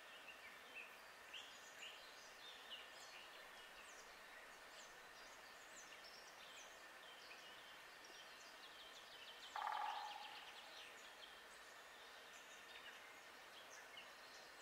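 Faint woodland birdsong: several small birds chirping, with a quick trill. About two-thirds of the way through there is one louder, harsher bird call lasting about half a second, the loudest sound here.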